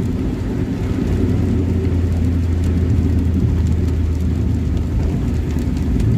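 Steady low engine drone and the hiss of tyres on a wet road, heard from inside the cabin of a moving vehicle driving in rain.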